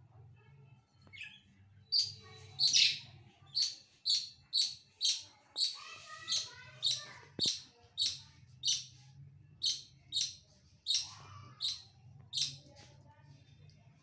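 Pet budgerigars chirping: a steady run of short, sharp chirps, about two a second, starting about two seconds in, over a faint low hum.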